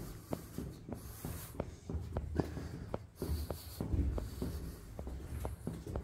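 Footsteps scuffing and tapping on a concrete floor, a string of light irregular steps with clothing and handling rustle between them.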